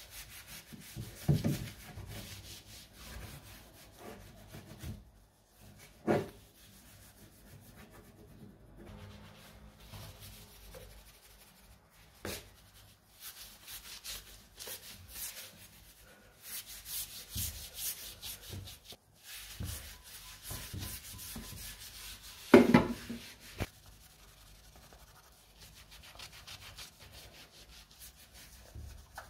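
Objects being handled close to the microphone: scratchy rubbing and rustling with light clicks, and a few soft knocks, the loudest about 22 seconds in.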